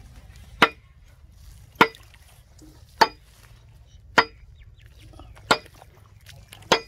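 Six sharp metal clanks at a steady pace, about one every 1.2 seconds, each with a brief ring.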